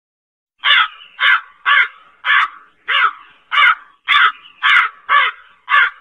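Crow cawing: a quick series of about ten caws, roughly two a second, starting about half a second in.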